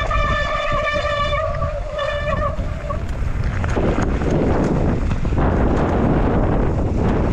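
Mountain bike speeding downhill. A steady, pitched whine from the bike lasts about three seconds, with a short break near two seconds. Then wind rushes over the microphone, with the bike rattling and clicking over rough trail.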